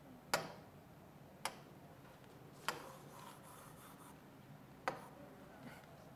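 A stylus tapping and writing on a digital whiteboard screen: four sharp, unevenly spaced taps, with faint scratchy pen strokes between them about three to four seconds in.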